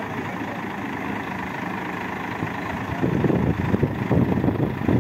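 Crane truck's diesel engine idling steadily. About three seconds in, a louder, uneven low rumble joins it.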